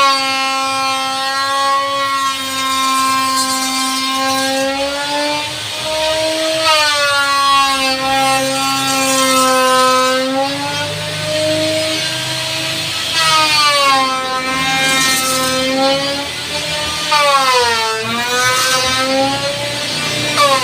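An electric woodworking power tool's motor running with a steady whine. Its pitch sags several times and recovers, dipping deepest near the end, as it slows under load in the cut.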